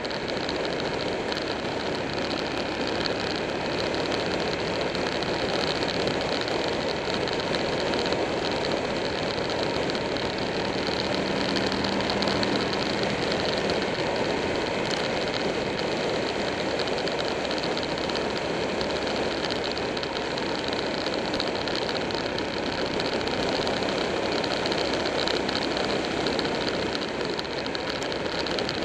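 Buell 1125R's V-twin engine running steadily at road speed, with wind rushing over the microphone.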